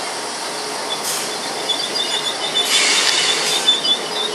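Train moving slowly with its wheels squealing on the rails in short, repeated high squeaks, over a steady rumble and a few brief bursts of hiss.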